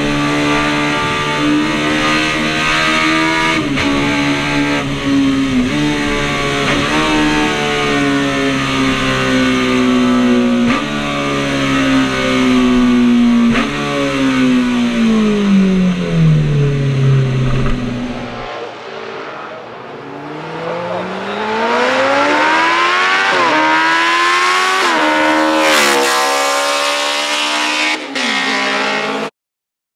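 Classic Honda racing motorcycle engine at high revs, heard from on board: the note climbs and drops sharply at each gear change, then winds steadily down as the throttle closes. After a cut, a racing motorcycle accelerates hard through several gears, its note rising and dropping in quick steps, and the sound cuts off suddenly near the end.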